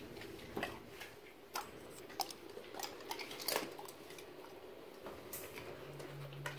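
Scattered light clicks and clinks as a pit bull moves about and eats treats off the wood floor of a wire exercise pen.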